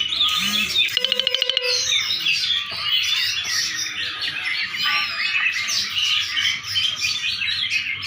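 Several songbirds chirping and twittering at once in a dense, overlapping chatter. About a second in there is a short, rapid rattling trill.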